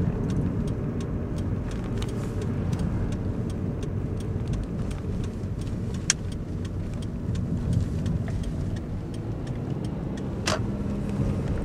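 Steady road and engine noise of a car being driven, heard from inside the cabin, with faint scattered ticks and a sharp click about six seconds in.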